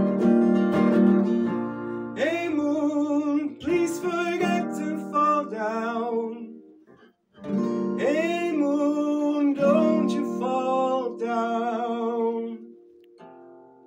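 A male voice singing long, wavering notes over an acoustic guitar. The music breaks off briefly about seven seconds in, then goes on, and the playing turns quieter near the end.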